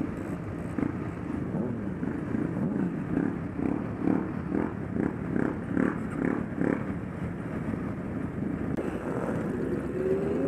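A crowd of motorcycle engines idling together, with one bike's engine revving up near the end.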